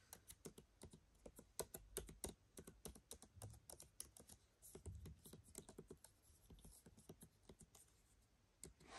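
Faint typing on the built-in keyboard of a 14-inch M1 Pro MacBook Pro: quick, irregular key clicks as an email address is entered, tailing off near the end.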